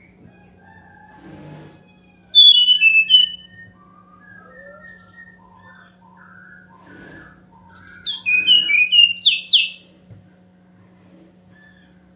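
SRDC (sikatan rimba dada coklat, a jungle flycatcher) singing: two loud bursts of quick whistled notes, each falling from very high to lower in pitch and lasting about one and a half to two seconds, the first about two seconds in and the second about eight seconds in, with softer twittering notes between them.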